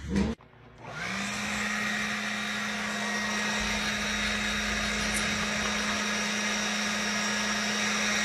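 A motor-driven blower spins up about a second in and then runs steadily: a rush of air over a low hum and a thin high whine.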